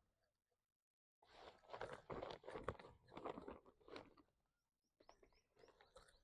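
Monkey crunching and chewing food it has been handed, in several short bursts after a second of silence, with fainter clicks near the end.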